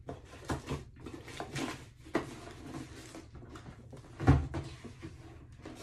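Handling noises as sneakers are set down and the next pair picked up: rustling and several light knocks, with one louder thump about four seconds in.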